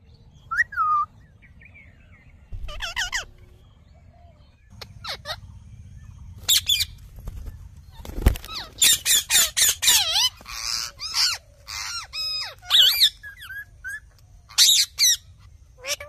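Rose-ringed (Indian ringneck) parakeets calling: a few scattered squawks and chirps at first, then a single thump just past halfway, followed by many screeching calls close together.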